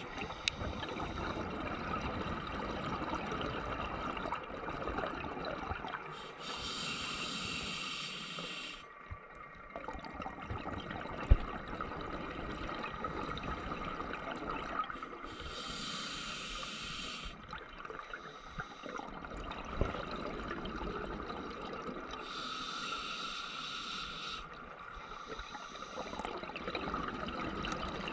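A scuba diver's breathing underwater: a burst of bubble noise about every seven or eight seconds, each lasting about two seconds, over a steady underwater hiss. A single sharp click about eleven seconds in.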